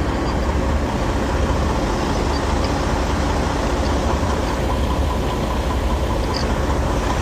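Semi-truck diesel engines idling, a steady low rumble.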